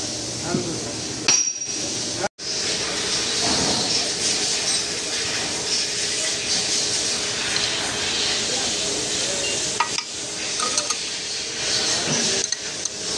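Cylinder boring machine cutting the freshly sleeved bore of an engine block: a steady high-pitched metallic machining hiss over a faint steady hum, with scattered clinks. The sound cuts out for an instant about two seconds in.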